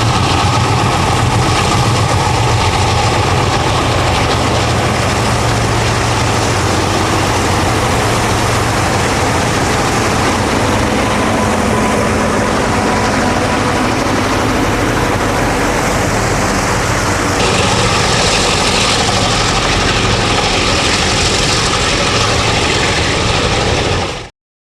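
Vintage diesel locomotive engines running steadily with a heavy low hum; the sound cuts off abruptly near the end.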